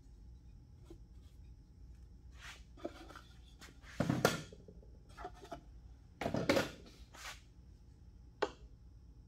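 A glue brush rubbing and scraping on a wooden console, with rustling as the console is handled. There are two louder scraping rustles about four and six and a half seconds in, and a short sharp tap near the end.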